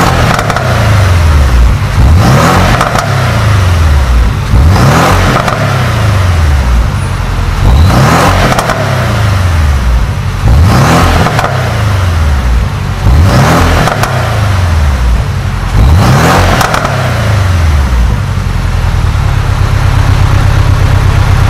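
Porsche 718 Boxster S turbocharged flat-four engine revved through its exhaust with the valve open: sharp throttle blips about every two to three seconds, each rising fast and falling back, then a steady run near the end.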